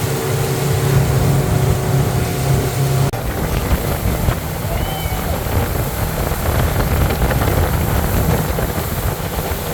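Motorboat engine running steadily underway, with wind on the microphone and rushing water. About three seconds in, the steady engine hum gives way abruptly to rougher wind and water noise.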